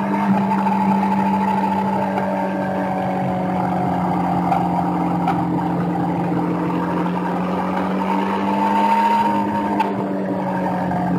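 Sportbike engine running steadily at track speed, its note dipping slightly and rising again, heard from a camera on the bike with wind rush over it.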